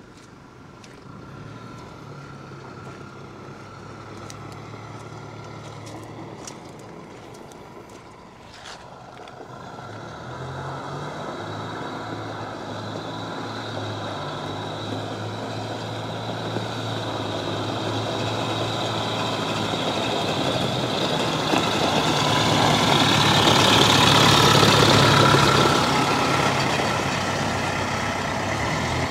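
Fendt Xylon tractor's MWM four-cylinder diesel engine running as the tractor drives up, growing steadily louder to a peak about 25 seconds in, then easing slightly. A few light clicks in the first several seconds.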